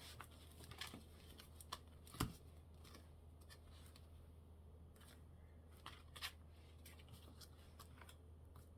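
A few quiet snips of scissors cutting paper, spread out with near silence between them, the loudest about two seconds in.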